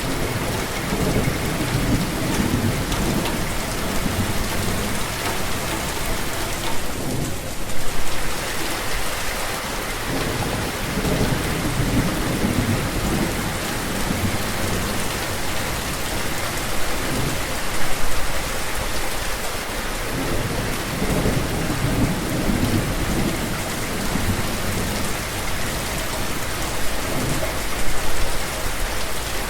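Steady heavy rain falling, with low rolls of thunder swelling and fading several times.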